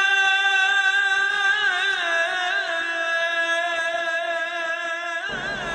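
A single voice chanting or singing in a Middle Eastern style, holding long notes with ornamented, wavering turns about two seconds in and again near the end. A low rumble comes in just before the end.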